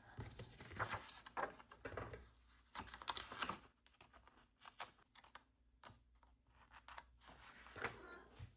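Close paper handling: sticker sheets and planner pages rustling, with a sticker peeled and pressed down in a string of small irregular clicks and taps.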